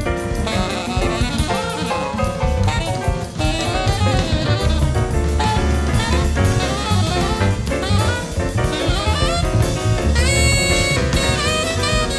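Free jazz from an alto saxophone, piano, double bass and drum kit quartet. The alto saxophone plays quick, winding lines over busy drumming and holds one high note for about a second near the end.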